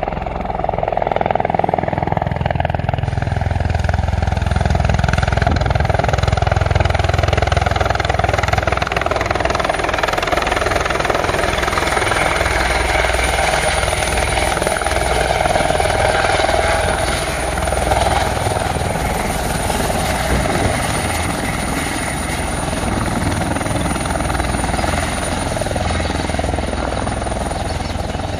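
Eurocopter EC120B Colibri helicopter flying low and close, running loud and steady: the rotor noise with the high, steady whine of its Turbomeca Arrius 2F turboshaft. The low rotor rumble is heaviest in the first ten seconds or so.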